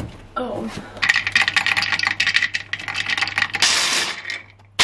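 Hand blender with a chopper attachment chopping nuts: hard pieces clatter rapidly against the plastic bowl, then the blade spins into a steadier whirr, stops briefly and starts again at the very end.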